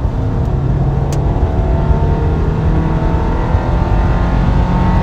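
Subaru flat-four engine pulling hard under acceleration, its pitch rising steadily as it climbs toward 5,000 rpm on a test run to check whether the random misfire above 5,000 rpm is cured by the replaced crankshaft tone wheel.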